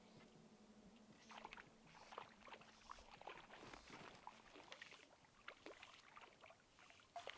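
Near quiet, with faint irregular small splashes and trickles of water, scattered from about a second in.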